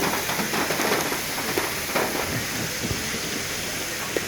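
Heavy rain pouring down: a steady hiss with many small drop hits.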